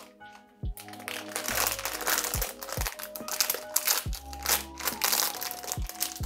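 Foil blind-box bag crinkling as it is torn open and crumpled by hand, over background music with a steady drum beat.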